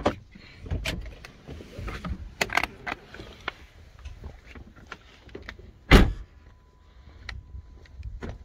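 Scattered clicks and knocks of handling inside a car, then a car door shut with one heavy thump about six seconds in.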